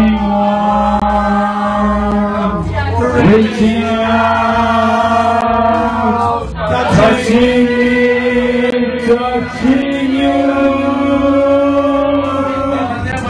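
Singing voices holding long, steady notes in phrases of about three seconds each, with short breaks between them.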